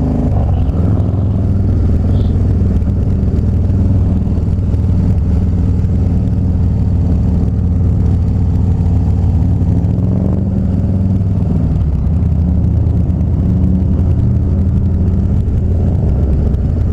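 Harley-Davidson Dyna Street Bob's V-twin engine running steadily while the motorcycle is ridden along at an even pace.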